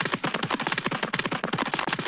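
A fast, even run of sharp clicks, about a dozen a second.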